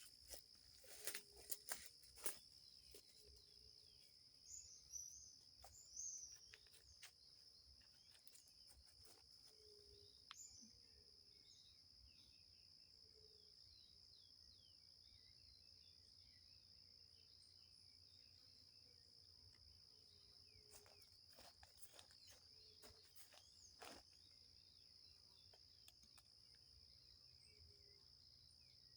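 Faint night-time forest chorus: a steady high insect trill with low short calls repeating every second or two. Scattered sharp clicks and snaps come in a cluster near the start and again about three-quarters of the way through.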